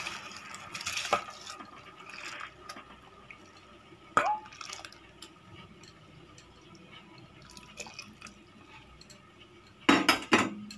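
Washed rice and water poured into a steel pot of hot water, tailing off into drips and splashes in the pot. A single ringing metal clink about four seconds in, and a quick cluster of louder knocks against the pot near the end.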